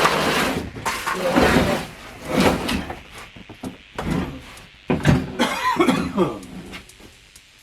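Indistinct voices and a cough or breathy noise, with a few knocks and rustles from stored items and bins being handled.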